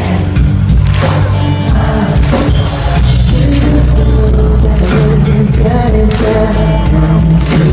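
Live pop-punk band playing loud, with singing over a full band and cymbal crashes recurring every second or so.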